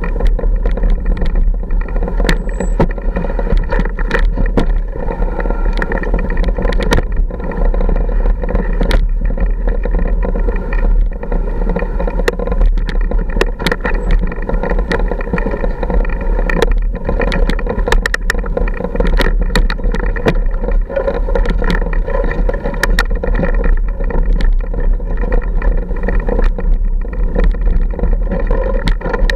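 A motorcycle engine running steadily at low speed over a rough rocky trail, with many short rattles and knocks over the drone.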